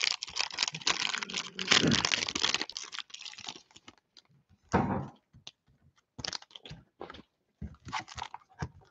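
Plastic wrapper of a Panini Prizm football-card cello pack crinkling and tearing as it is opened, for about three and a half seconds. Then come scattered light taps and rustles of the wrapper and cards on the table, with one thump about five seconds in.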